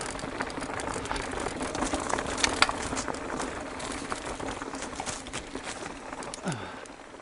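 Mountain bike descending a rocky trail: tyres grinding over loose rock and the bike rattling, with many quick clicks and knocks over the chunk.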